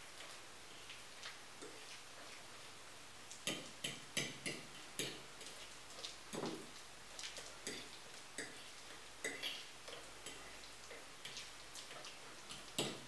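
Metal fork clicking and scraping against a plate while mixing cocoa into mashed banana: irregular light clicks, a few a second.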